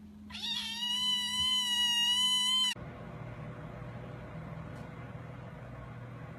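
A domestic cat giving one long, drawn-out meow at a steady, fairly high pitch for about two and a half seconds, cut off suddenly. A steady low hum with hiss follows.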